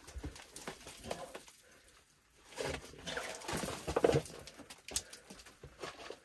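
Irregular scuffs and scrapes of shoes and hands against crumbly, dirt-like badland rock as a climber braces up a narrow dry fall, with a quieter pause about two seconds in.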